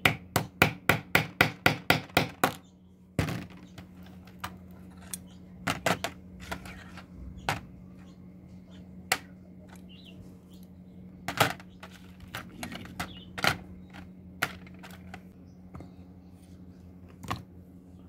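A hammer striking a punch on a rusty wire cutter's pivot, about ten quick blows at roughly four a second, while the tool is being taken apart. After that come scattered clicks and knocks of small metal parts being handled and set down on a table.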